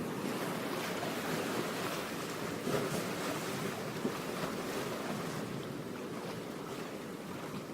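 A steady rushing noise, even and without any tone.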